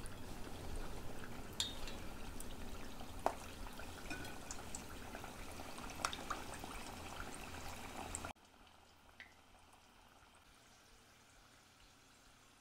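Curry puffs deep-frying in hot oil: a steady sizzle with scattered small pops and crackles. It cuts off abruptly about eight seconds in, leaving near silence.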